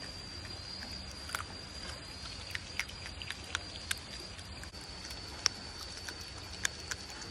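An otter chewing raw red snapper, with irregular sharp crunches as it bites through the fish; the loudest comes about five and a half seconds in. Underneath are steady rain and a continuous high insect trill.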